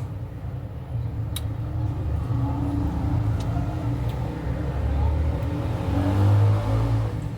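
Low engine rumble of a motor vehicle, swelling to its loudest about six seconds in and then easing off.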